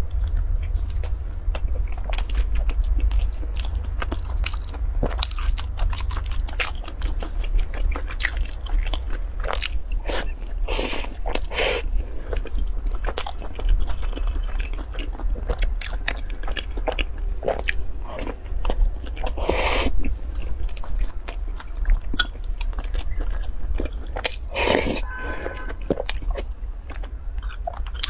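Close-miked eating: chewing and lip smacking with many small wet mouth clicks, and a few longer, louder mouth noises, over a steady low hum.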